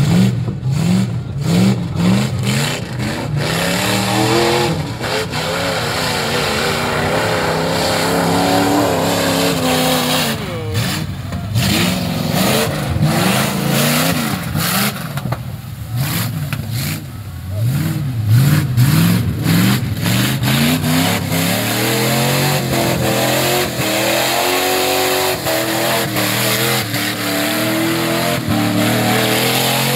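Big engines in lifted 4x4 pickup trucks revving hard and falling back again and again as the trucks churn through a deep mud pit.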